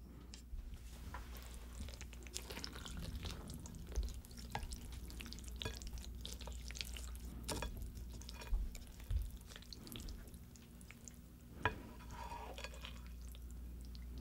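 Wooden chopsticks stirring and mixing naengmyeon noodles in a bowl of icy, spicy broth: a continuous wet crackle of noodles and slushy liquid moving, with a few sharper clicks of the chopsticks.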